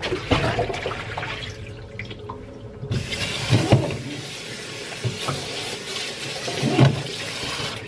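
Water running from a tap, the flow getting stronger about three seconds in, with a few short knocks and clunks along the way.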